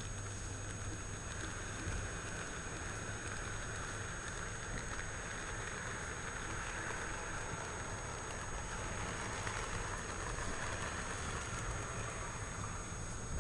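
N-gauge Wamu 80000 boxcars rolling past on model track, their small wheels making a steady, fine clatter over the rail joints: the distinctive joint sound of these wagons.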